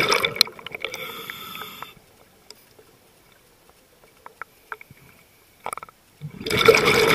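Scuba diver's regulator breathing heard underwater: a loud rush of exhaled bubbles fades out in the first couple of seconds, a quiet stretch with a few faint clicks follows, and another rush of exhaled bubbles starts about six seconds in.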